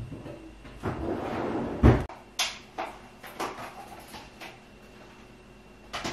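A white ceramic gratin dish and a glass jar handled on a table: a rustle, then one loud knock a little under two seconds in as the dish is set down, followed by several light clicks and taps.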